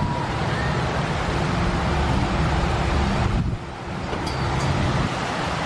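Strong wind buffeting the microphone: a loud, steady rumbling rush that eases briefly about three and a half seconds in.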